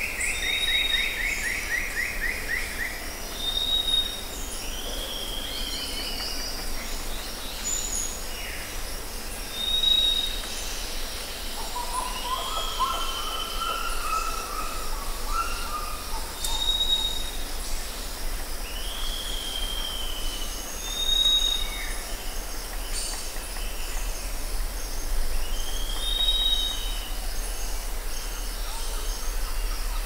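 Rainforest birds calling over a steady hiss of insects. A short high whistle repeats every few seconds, with arched lower calls between, a fast descending trill at the start and a warbling phrase about halfway through. A low rumble runs underneath and grows stronger near the end.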